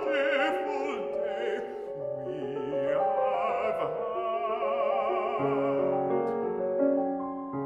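A classically trained baritone sings a sustained operatic line with wide vibrato, accompanied by a grand piano. The voice falls away in the last couple of seconds, leaving the piano's held chords.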